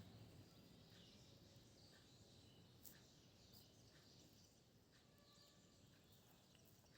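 Near silence: faint room tone with a few faint, brief chirps.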